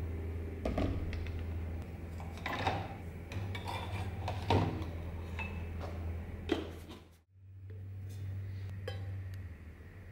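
Metal dagger parts clinking and knocking against jars as they are handled and lowered into a jar of liquid: about five separate clinks over a steady low hum. The sound drops out briefly about seven seconds in.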